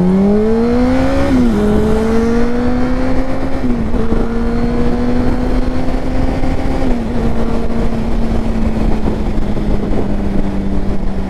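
Sport motorcycle engine heard from on board, revving up for about a second and a half, then dropping in pitch with an upshift, shifting up again near four seconds and settling into a steady cruise, with wind noise throughout.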